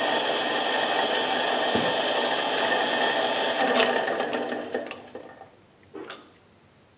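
Small benchtop lathe running steadily while a twist drill in the tailstock bores the center hole in a pure-grade titanium workpiece; the lathe winds down about four to five seconds in and goes quiet, with one faint click about six seconds in.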